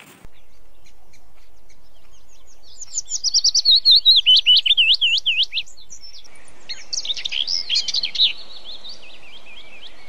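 Birds singing: quick runs of high whistled notes that rise and fall, in a bout about three seconds in and a denser one near seven seconds, with softer chirps between.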